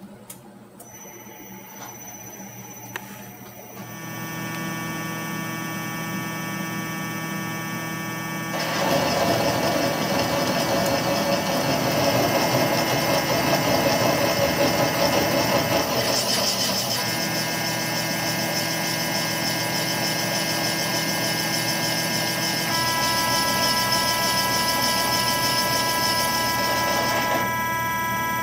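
A CNC mill's spindle drive runs with a steady whine of several fixed tones, coming up a few seconds in. About a third of the way in, a boring head turning slowly counterclockwise starts cutting the outside diameter of a metal part, adding a rough, steady cutting noise that stops shortly before the end.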